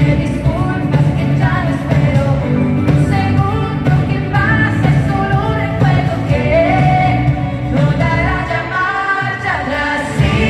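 Live pop song: a female lead singer sings with a full band of drums, bass, guitar and keyboards, heard from the audience in an arena.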